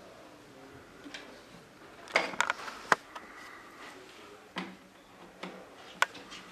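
Parts of a flat-pack shoe cabinet being handled and fitted: a quick cluster of clicks and knocks about two seconds in, a sharp click just after, a duller knock past the middle and one more sharp click near the end.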